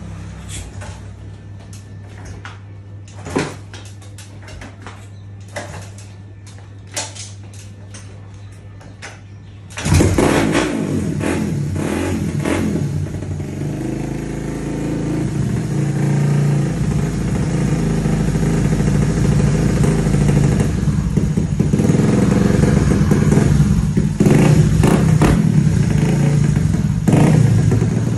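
Honda Wave's four-stroke single-cylinder engine starting after some clicks and knocks, catching suddenly about ten seconds in. It then runs and is revved, growing louder through the second half.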